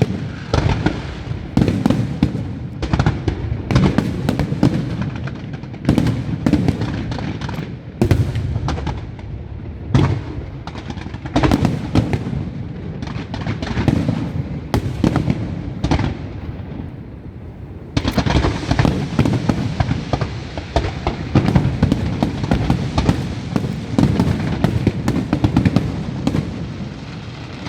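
Aerial fireworks bursting in quick succession, sharp bangs with crackle and low rumble between them. The barrage eases briefly about two-thirds through, then resumes suddenly in a dense volley.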